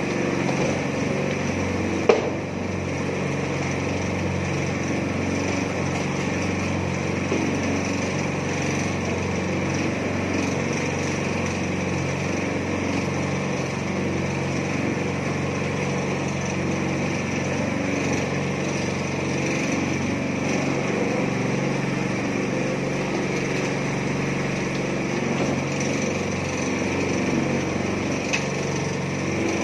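Small petrol engine of a mini concrete mixer running steadily at a constant speed. A single sharp knock sounds about two seconds in, and a fainter one near the end.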